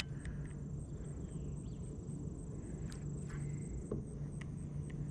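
High-pitched insect trilling, a steady high note with an evenly pulsing chirp over it, with a low steady hum underneath and a few light clicks and knocks.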